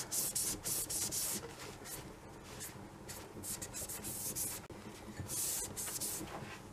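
Damp cloth rubbed back and forth along a metal tube in an irregular run of short scrubbing strokes, wiping off cold gun-blue gel that has turned grey.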